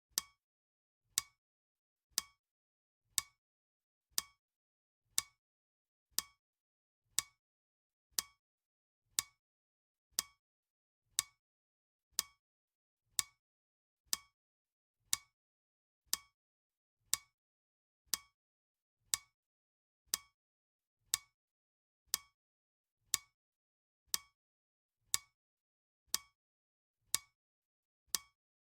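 Clock ticking steadily, one sharp tick each second with silence between.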